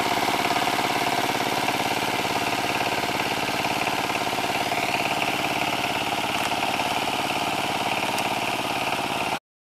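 Kamco power tiller's single-cylinder diesel engine running steadily under load while puddling, with a fast, even chugging. The sound cuts off suddenly near the end.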